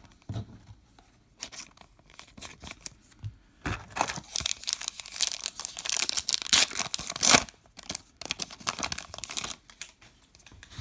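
Baseball card pack wrapper being torn open and crinkled, a crackling that is loudest from about four to seven and a half seconds in.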